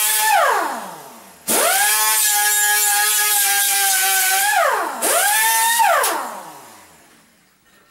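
Electric abrasive cut-off tool cutting steel stock. The motor's whine winds down with falling pitch near the start. It spins up again about a second and a half in and runs steadily for about three seconds with a loud hiss from the cut, then winds down. It runs once more, briefly, about five seconds in before spinning down to a stop.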